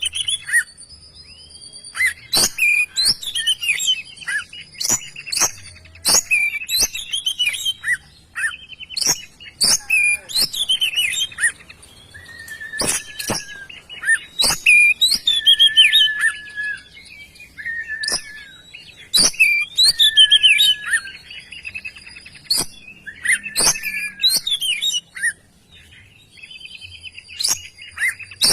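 Oriental magpie-robin singing loudly in energetic, full song: rapid phrases of sharp clicking notes, chattering and whistles, with some longer held notes and short pauses between phrases.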